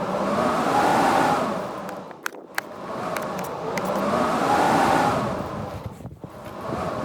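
Blizzard wind blowing in strong gusts, each swelling up and dying away about every four seconds with a faint howl that rises and falls in pitch. A couple of sharp clicks sound in the lull about two seconds in.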